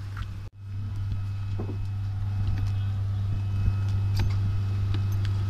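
Steady low drone with faint high whining tones from the ATR 72-500 turboprop standing on the apron. Scattered knocks of passengers' footsteps sound on the metal boarding stairs.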